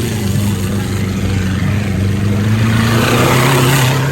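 Off-road race vehicle's engine running hard, its pitch climbing slowly, with a louder rush of noise building about three seconds in.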